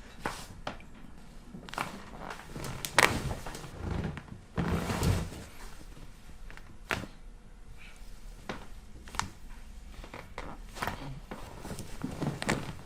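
Chiropractic adjustment: a series of sharp clicks and knocks, the loudest about three seconds in, with a longer muffled thump and rustle around five seconds.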